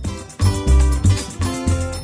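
Background music: plucked guitar over a bass line.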